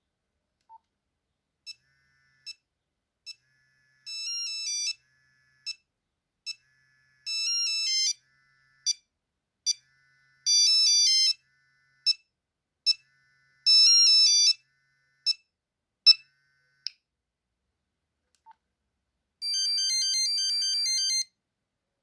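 A Nokia 3310 playing a monophonic ringtone through its small speaker: a beeping tune of short single notes mixed with quicker runs of notes. It ends about 17 seconds in, and after a short pause another ringtone starts with a rapid run of notes.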